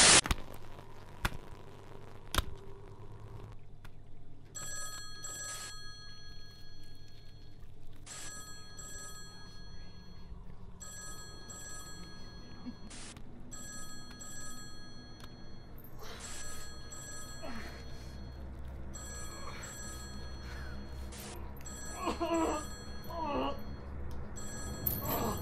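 Telephone ringing over and over, starting about four seconds in, each ring lasting about two seconds with short gaps between. A brief burst of noise comes at the very start.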